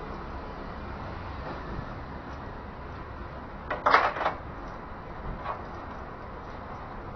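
Rubber fuel filler hose on a Hyundai H1 van being twisted and worked off the fuel tank's inlet neck, coming free with a short, loud burst of scraping and knocking about four seconds in. A steady low hum sits underneath.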